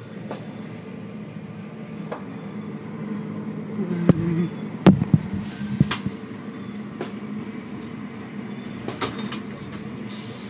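Automatic car wash machinery running with a steady hum, with a few sharp knocks between about four and six seconds in.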